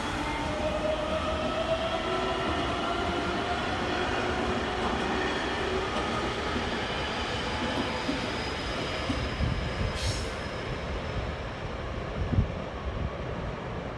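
Electric multiple-unit train pulling out of the station: the motor whine rises slowly in pitch as it accelerates, then fades. A few low thuds follow near the end.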